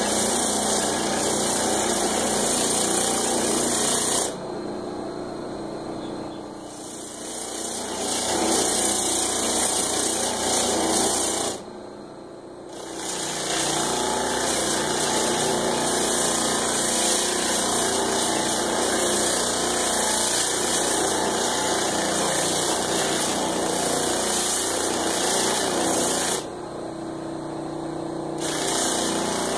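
Homemade drum sander: an electric motor spinning a sanding drum on its shaft, with a wooden workpiece pressed against it, giving a steady grinding hiss. The sound drops away in three brief lulls as the contact eases.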